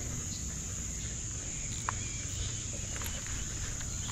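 A steady, high-pitched insect drone at dusk, over a low rumble, with a couple of faint clicks.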